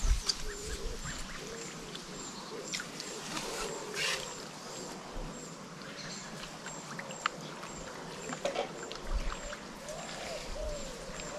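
Birds calling by the water: a thin high chirp repeating about twice a second over lower rising-and-falling calls, with a few short clicks and knocks.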